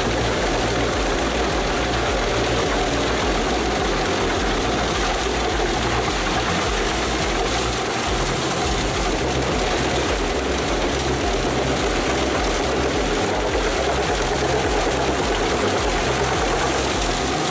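Large Pezzolato PTH 1200/1000G wood chipper, driven by a 360 hp John Deere engine, running steadily at working speed while chipping timber. It makes a loud, continuous din that does not rise or fall.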